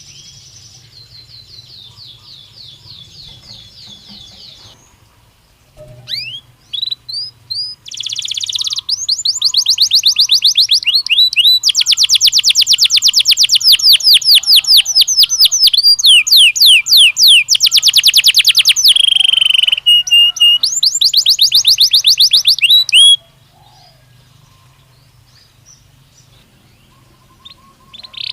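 Belgian canary singing: a soft trill, then a few separate rising notes, then long loud runs of fast, rapidly repeated sweeping notes for about fifteen seconds. The song breaks off and there is a quieter pause before it starts again at the very end.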